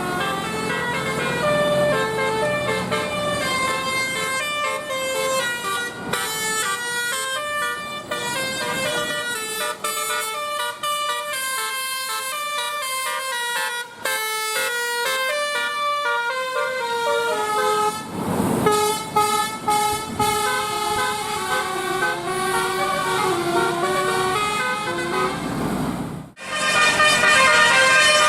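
Bus 'telolet' horn: a set of air-horn trumpets playing a quick tune of stepped notes, several pitches sounding together. Near the end it breaks off abruptly and another horn tune starts.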